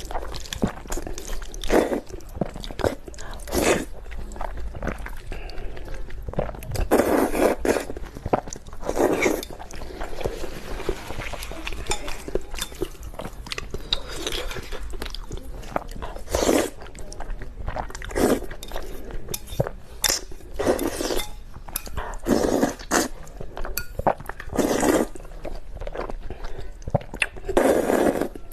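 Close-up eating of spicy Korean noodles: continuous chewing and mouth noises, with a louder burst every second or two.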